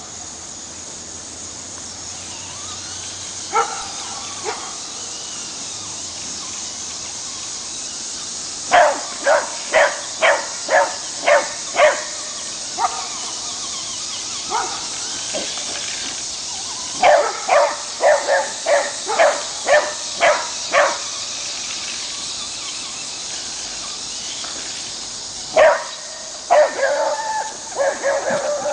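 Beagle barking: a few single barks, then quick runs of short barks at about two to three a second, over a steady high hiss.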